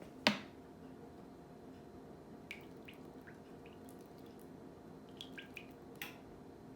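Kitchen clatter: one sharp clack just after the start, a few faint ticks and clicks, and another clack about six seconds in, over a steady low hum.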